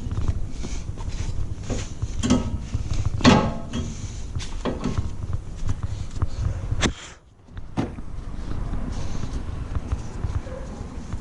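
Handling noises during brake work: scattered clicks, knocks and scrapes of tools and metal brake parts being cleaned and moved, over a steady low hum.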